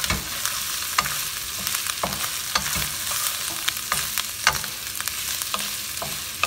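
Battered chicken pieces sizzling in hot oil in a nonstick pan on high heat, stirred with a wooden spatula that knocks and scrapes against the pan in irregular strokes about every half second.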